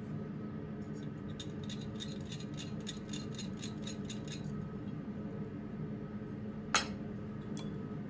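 Light metallic ticking, about four ticks a second, as a steel tong blank is worked by hand on an anvil, then a single sharp metal clink near the end, over a steady low hum.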